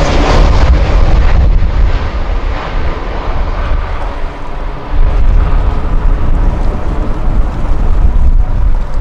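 Airbus A320neo's geared turbofan engines heard as the airliner passes low on landing approach and moves away: a high whine fades out within the first second, leaving a heavy low rumble. The rumble dips, then grows loud again about five seconds in.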